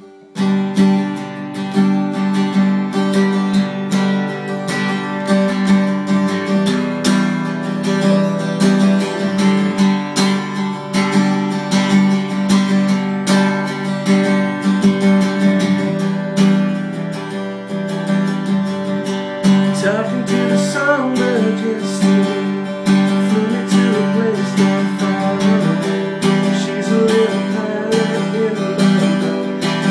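Acoustic guitar playing, starting about half a second in.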